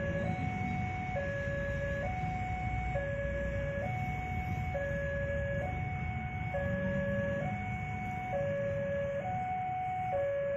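Railway level-crossing warning alarm sounding its two-tone signal, a higher and a lower note swapping about every second without a break, warning that a train is coming. A steady low rumble runs underneath.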